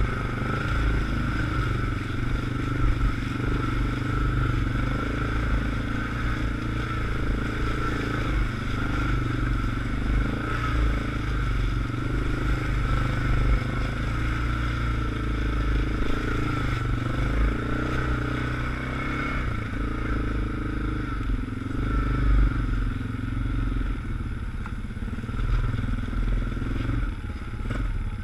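A quad ATV's engine running steadily under load in low-range gear as it crawls along a slushy, muddy trail.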